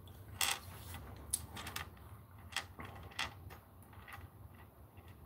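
Faint, irregular light clicks and taps, about ten over a few seconds, against a low steady room hum.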